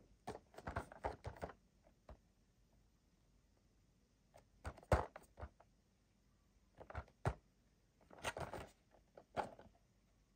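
Handling noise from a cardboard action-figure box with a clear plastic window as it is turned over in the hands: clusters of short taps, clicks and crinkles with quiet gaps between, the loudest knock about five seconds in.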